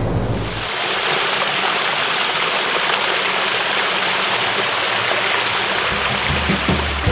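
Creek water running steadily over a small cascade of stepped rock ledges, a dense splashing rush.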